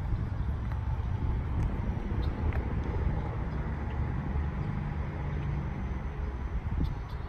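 Low, steady rumble of a vehicle engine under outdoor background noise, with a faint hum that swells and fades.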